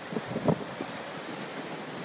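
Storm surf rushing and breaking over rocks, with wind buffeting the microphone in a couple of short gusts in the first half second before settling to a steady rush.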